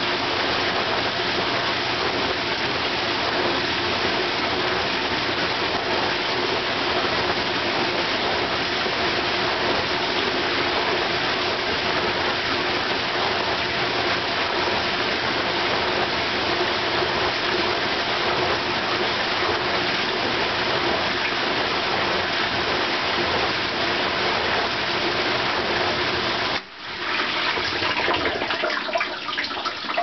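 A 1993 KitchenAid dishwasher's 1/2-horsepower motor driving its hydro-sweep wash arms: water sprays hard against the racks and tub with a steady hum. Near the end the spray stops suddenly, leaving water splashing and trickling unevenly.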